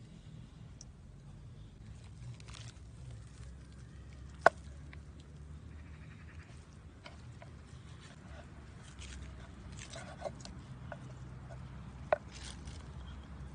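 A steel knife knocking on a wooden cutting board and roasted meat being handled, with small clicks and two sharp knocks, one about four seconds in and one near the end, over a low steady hum.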